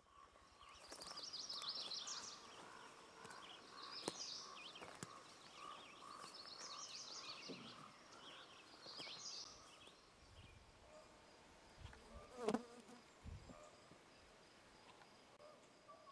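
Woodland ambience: a steady insect buzz, with short high twittering phrases repeating every two to three seconds in the first half and a single sharp knock about twelve seconds in.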